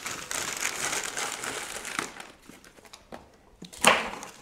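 Packaging paper and plastic wrapping crinkling and rustling as it is handled, with a quieter stretch after about two seconds and one short, loud rustle or rip near the end.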